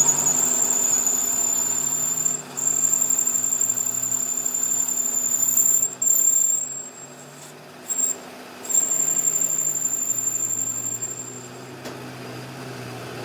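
A workshop machine running with a steady high-pitched whine over a low hum. It cuts out briefly about two and a half seconds in, goes quiet for a few seconds in the middle, and stops near the end.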